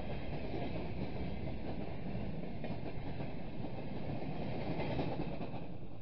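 Freight train wagons, open gondolas then tank cars, rolling past close by: a steady rumble and clatter of wheels on the rails.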